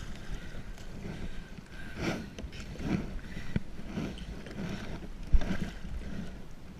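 Water sloshing against a kayak hull in irregular swells about a second apart, with one sharp knock on the hull about five seconds in.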